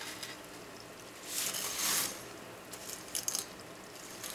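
Dry spaghetti being handled and lowered into a pot of water: a rustle a little over a second in, then a few quick clicks of the stiff strands about three seconds in.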